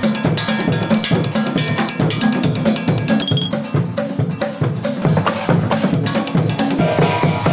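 Percussion played on drums made from recycled junk (metal pots, a steel canister, a small drum, a cymbal) in a fast, steady groove of dense hits, with low notes moving between pitches underneath.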